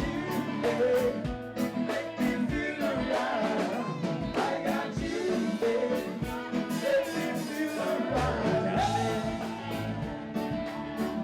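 Music with a singer over a steady drum beat and bass, with guitar.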